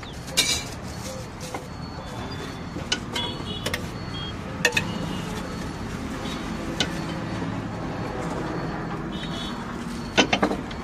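Steady hum of road traffic, with scattered short, sharp crinkles and clicks from aluminium foil and plastic bags being handled.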